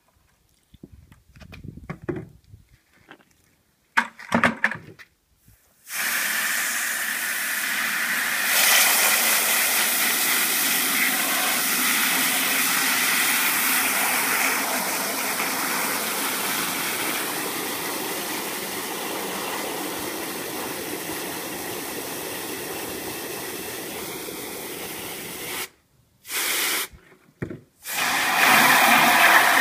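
Liquid soap poured into a plastic bucket with a few faint splashes. Then a garden hose spray nozzle fills the bucket, a steady rush of water spraying and foaming. Near the end the spray cuts off twice briefly and comes back louder as it hits a second, emptier plastic bucket.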